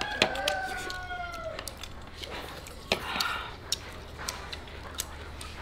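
Sharp clicks of metal pliers and eating utensils against ceramic plates, scattered throughout. A rooster crows once at the start, for about a second and a half, its pitch falling at the end.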